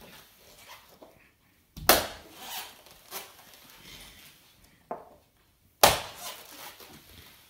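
Loud, sharp thumps: one about two seconds in and another about six seconds in, with a smaller knock just before the second and fainter knocks and rustling between.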